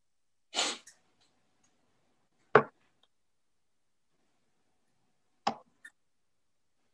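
Two sharp knocks about three seconds apart, the second followed by a faint click, after a short hiss near the start.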